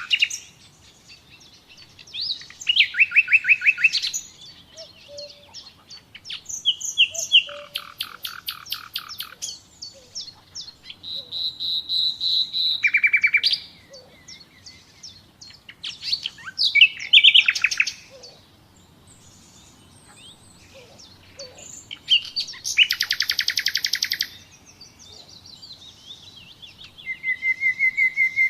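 Common nightingale singing: separate phrases a few seconds apart, each a fast run of rapidly repeated notes or dry rattles. One phrase is a single whistled note repeated and swelling louder.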